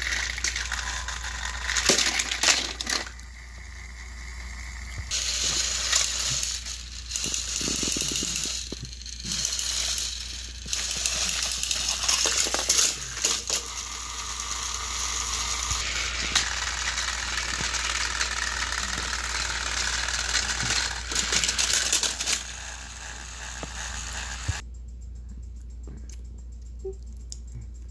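Plastic Thomas & Friends toy trains and toy pieces clattering and rattling in irregular bursts of knocks and clicks. About three-quarters of the way through it goes much quieter.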